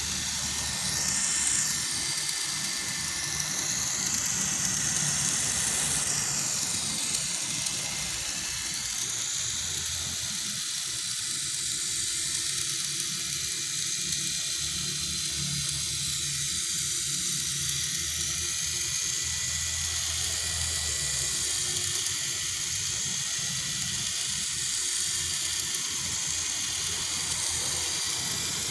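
Small infrared RC toy helicopter's electric motor and spinning rotor, giving a high-pitched whine and hiss. The whine rises and falls in pitch during the first few seconds, then runs steadily.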